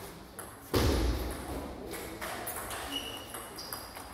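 Table tennis rally: the ball clicks sharply off the bats and table, with one heavy thud about a second in.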